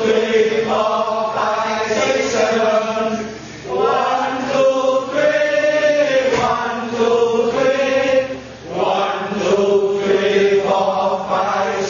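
Chanting: long-held sung notes in three phrases of about four to five seconds each, with brief breaths between them.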